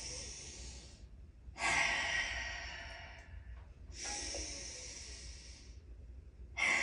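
A woman's slow, deep yoga breaths in and out, close to the microphone: a breath ending soon after the start, two full breaths of about two seconds each in the middle, and another starting near the end.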